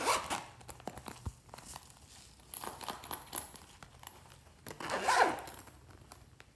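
Shiny gold pouch crinkling and rustling as it is squeezed and turned in the hands. There are louder bursts at the start, about three seconds in and about five seconds in, with small clicks between.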